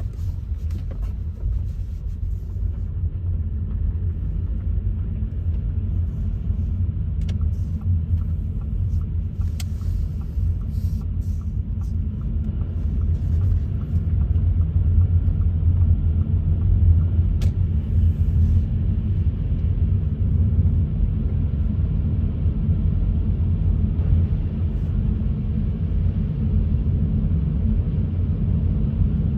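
Car driving on wet roads: a steady low rumble of engine and tyres, with a few faint clicks.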